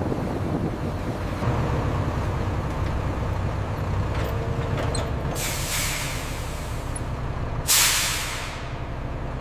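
Steady low underwater rumble, with two short sharp hisses about five and eight seconds in, the second the louder.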